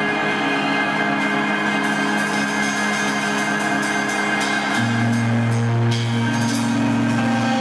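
Live band music led by an electric guitar, with notes held steady over a drone. A deep low note comes in about five seconds in, and a few light percussive strikes sound over it.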